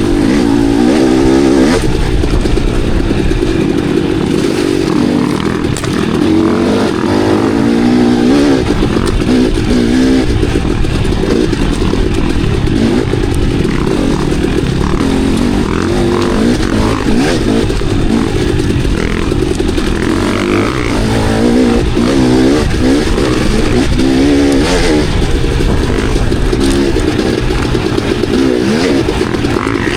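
Enduro dirt bike engine under way, revving up and down over and over as the throttle is worked, with the pitch rising and falling every second or so.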